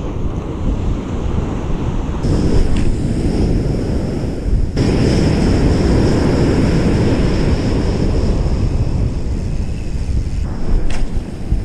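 Ocean surf breaking and washing up the beach, with wind buffeting the microphone; the rushing changes abruptly in strength a few times.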